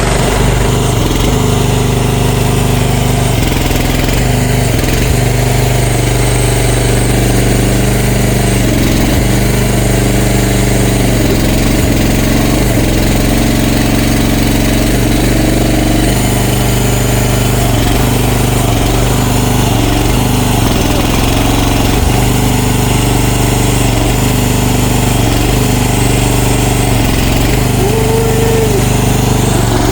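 CFG MX15RX mini excavator's engine running steadily, its pitch dipping briefly now and then as the machine is worked.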